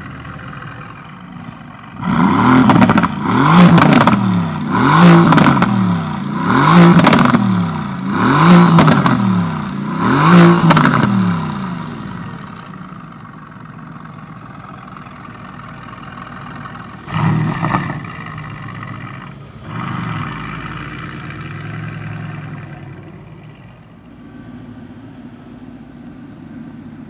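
Mercedes-AMG GT S's twin-turbo 4.0-litre V8 through a performance exhaust, idling, then revved loudly about six times in quick succession, each rev climbing and falling back. It then idles with two more short, sharp blips before settling back to idle.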